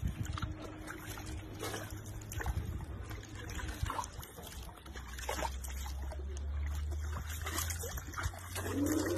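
Water splashing and trickling in a plastic tub as a baby elephant's trunk swishes and dips into it, scattered small splashes over a steady low rumble. Near the end a short pitched call or voice starts.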